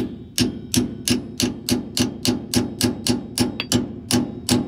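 Hammer striking a steel antique brake tool used as a seal puller, driving it against a stuck, rusted axle seal. Rapid, steady blows, about three to four a second, each a sharp metallic clink with a short ring.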